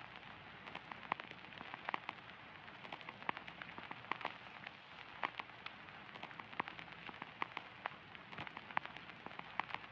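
Faint crackling ambience with no music: a steady soft hiss dotted with irregular sharp pops and ticks, several a second.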